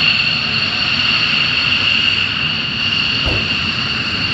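Twin-engine F-15 fighter jet on its takeoff roll at high power: loud, steady jet noise with a strong, high-pitched whine.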